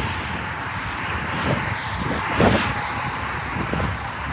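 Steady rushing noise with an uneven low rumble, typical of wind buffeting the microphone outdoors; it swells briefly about two and a half seconds in.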